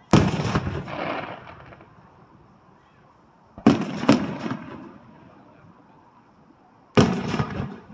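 Aerial firework shells bursting: three loud bangs about three and a half seconds apart, the second a quick double, each dying away over a second or so.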